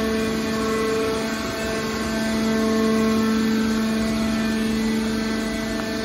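Hydraulic power unit of a scrap metal baler running: its electric motor and hydraulic pump give a steady hum with a whine, holding one pitch throughout.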